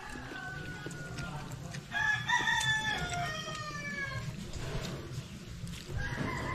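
Roosters crowing: a faint crow at the start, a loud crow about two seconds in lasting about two seconds and dropping in pitch at the end, and another crow beginning near the end.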